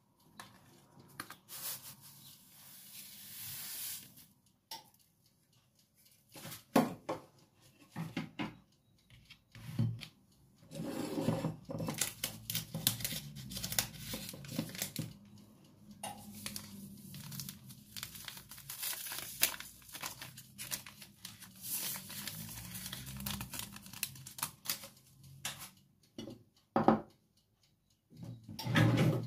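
Small packets being torn open and crinkled while sugar is poured into a plastic mixing bowl, with rustling and a few sharp knocks from handling.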